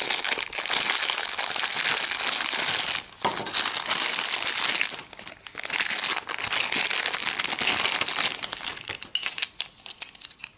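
Thin plastic Happy Meal toy bag crinkling and rustling in the hands as it is torn open and the toy pulled out. The crinkling breaks off briefly twice and thins to scattered crackles near the end.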